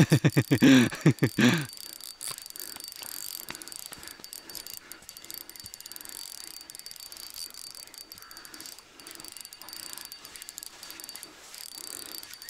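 Spinning reel being cranked to retrieve a lure: a fast, faint, even ticking from the turning reel. A brief loud voice is heard at the very start.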